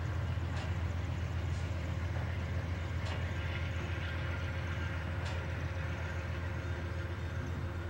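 Amtrak train's steel-wheeled express boxcars rolling past close by: a steady low rumble of wheels on rail, with a few sharp clicks scattered through.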